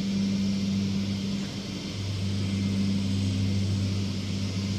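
Steady low hum with an even hiss underneath, the background noise of the recording.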